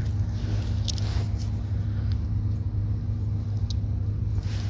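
A steady low mechanical hum, like a running engine or motor, with a few faint light clicks from a fishing lure's metal hooks being handled.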